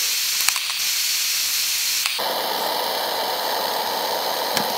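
Gas torch flame hissing steadily as it heats the inner race of an old crankshaft bearing, so that the race expands for the bearing to come off. About two seconds in the hiss turns fuller and deeper, and a few light metal clicks come near the end.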